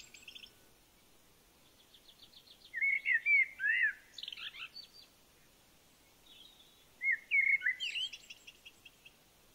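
A small songbird singing two short phrases of quick high chirps and downward-slurred whistles, the first about three seconds in and the second about seven seconds in.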